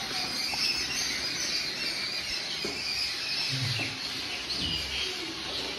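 Small birds chirping: many short, high calls, one after another, over a steady background hiss.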